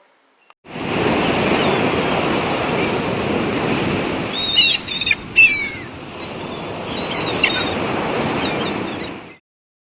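Ocean surf and rushing water, a steady wash of noise, with seabirds calling in short gliding cries a few times in the middle. It starts about a second in and cuts off shortly before the end.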